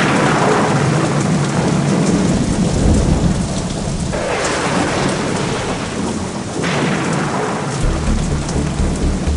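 Thunderstorm: steady heavy rain with thunder, a crack at the very start and fresh swells of thunder about four and six and a half seconds in. A deep, pulsing rumble comes in near the end.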